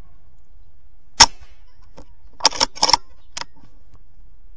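A single shot from a BSA Super10 .22 PCP air rifle: one sharp crack about a second in. About a second later comes a quick run of four sharp clicks and knocks, then one more.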